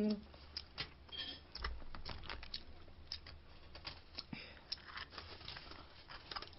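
Snow crab leg shells cracking and snapping as they are broken open and picked apart by hand, a run of scattered sharp clicks and crunches, with some chewing.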